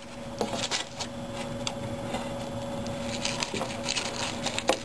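Scattered light clicks and rustles of a twisted limit-switch cable being pushed by hand through a cable duct and against the plywood frame of a 3D printer, over a faint steady hum.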